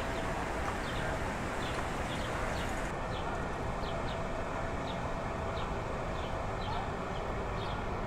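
Steady rushing outdoor background noise with short, high bird chirps coming irregularly, one or two a second.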